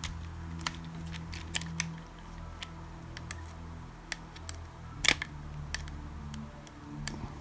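Scattered light clicks and ticks of a screwdriver driving a small self-tapping screw into a plastic RC car body mount, with one louder clatter about five seconds in.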